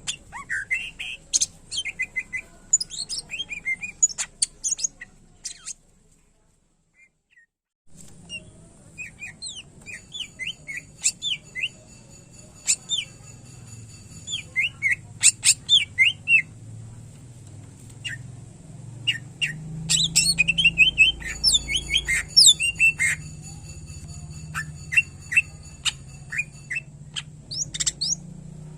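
Greater green leafbird (cucak ijo) singing in quick runs of sharp chirps, trills and whistled notes, a song filled with mimicked calls. It breaks off about six seconds in for a couple of seconds of near silence, then resumes.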